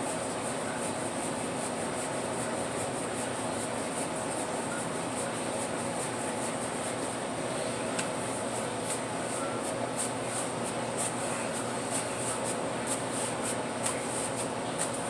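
Steady fan hum of the truck's ventilation and cooling equipment, with faint soft ticks and slaps from pizza dough being stretched by hand, more frequent in the second half.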